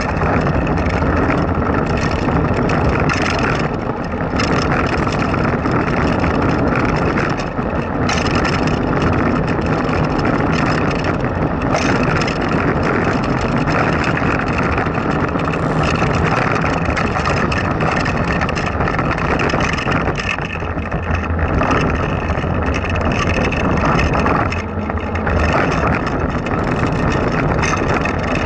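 Blokart land yacht rolling fast over asphalt: a steady rumble of the small tyres on the rough surface mixed with wind buffeting the low-mounted camera microphone, dipping briefly a few times.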